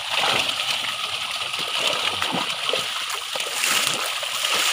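Dense, continuous splashing and spattering of many fish thrashing in shallow water crowded inside a seine net, with hands moving through the water among them.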